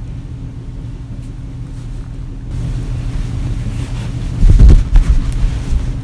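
A large quilt is shaken out and flung through the air, its rush of air giving a loud, low rumbling whoosh on the microphone about four and a half seconds in. A steady low hum runs underneath.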